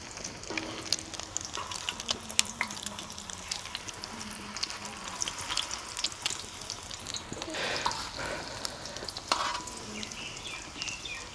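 Egg-coated potato patties (aloo tikki) shallow-frying in oil on a flat tawa, sizzling steadily with sharp crackling pops. A wooden spatula turning them and a metal spoon knock and scrape against the griddle now and then.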